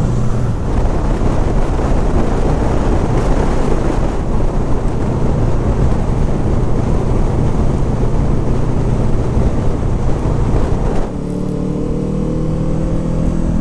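Wind and road noise roaring over a Honda VFR800F's V4 engine while riding. About eleven seconds in the wind noise drops and the engine's steady note comes through, its pitch rising slowly.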